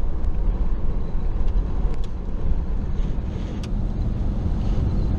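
Truck driving at road speed heard from inside the cab: a steady low rumble of road and wind noise, with a few faint ticks.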